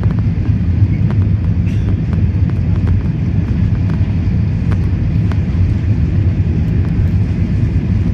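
Airliner cabin noise: a steady low drone from the engines and airflow, with a few faint clicks.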